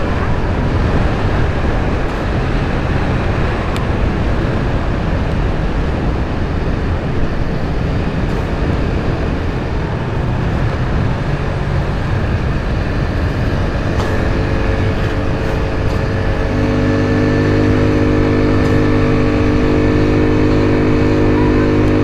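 Suzuki Gixxer 250's single-cylinder engine running on the road, heard through heavy wind and road rush. About two-thirds of the way through it settles into a steady, even engine note held at constant revs.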